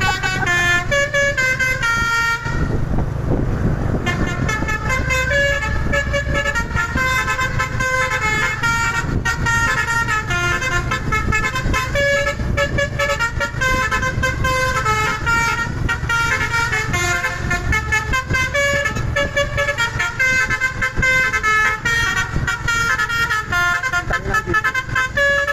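Basuri telolet multi-tone horn on a container truck playing a tune of short, quickly stepping notes, with a brief break about two seconds in, over the low rumble of the truck's engine.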